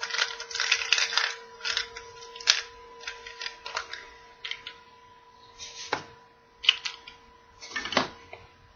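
Hard plastic clicking and clattering as a plastic Darth Vader helmet-shaped toy capsule is twisted and pried apart by hand. A quick run of clicks at the start, then scattered clicks, with sharper snaps near the end as its two halves come apart and the small figure inside is handled. A faint steady hum sits under it.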